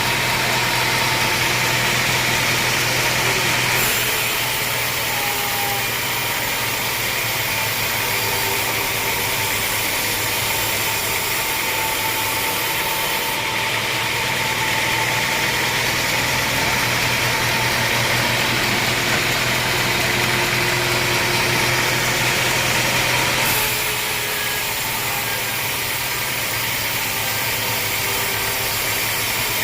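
Sawmill machinery running steadily: a motor hum under a constant hiss, its tone shifting abruptly a few times.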